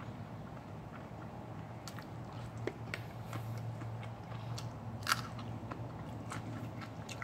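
Close-up chewing of a mouthful of food, with scattered soft crunches and clicks and one sharper click about five seconds in, over a steady low hum.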